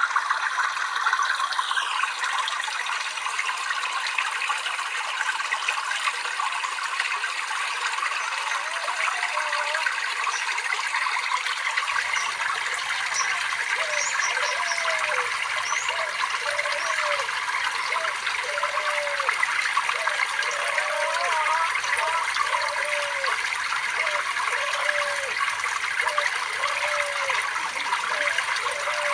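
Water trickling and babbling steadily, a continuous splashing rush, with faint short hooked notes repeating about once a second in the second half.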